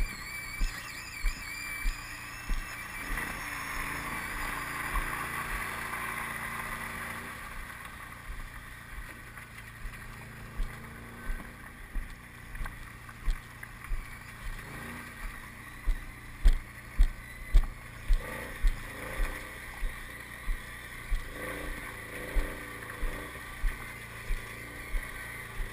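Multi-axle heavy-haul trailer rolling slowly on a gravel road: a steady rumble with wind on the microphone and a regular thump about once or twice a second, with a faint engine hum at times.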